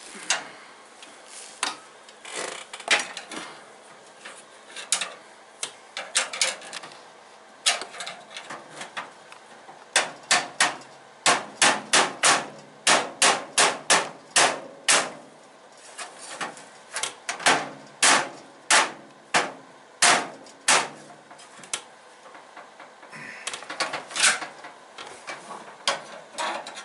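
Hammer blows on metal at a steel toolbox's drawer slide: dozens of sharp strikes, at about two or three a second through a dense run in the middle and more scattered before and after. The drawer is being knocked loose from a stubborn slider.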